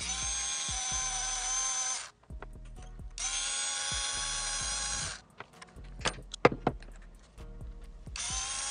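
Cordless electric screwdriver backing out the cylinder-head screws of a small nitro RC engine in three runs of a steady whine, the first two about two seconds each and the third starting near the end. Between runs there are small metallic clicks and knocks, the loudest a sharp knock about six and a half seconds in, as the screws are set down on the bench.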